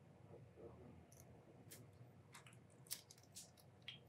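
Near silence with faint, scattered small clicks and ticks: a small screwdriver and tiny diecast metal parts and screws being handled while a model engine kit is assembled.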